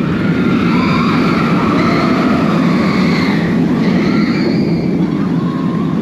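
B&M wing coaster train running through its layout, heard from the front row: a loud, steady rush of wind and track noise, with higher tones that rise and fall over it.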